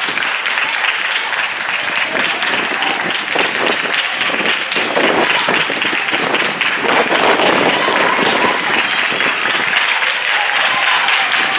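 Spectators cheering, shouting and clapping, a dense mix of voices and hand claps that grows louder in the second half.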